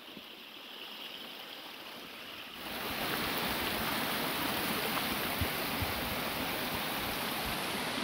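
Rain-swollen mountain stream rushing over rocks, a steady noise of fast water that grows clearly louder about two and a half seconds in.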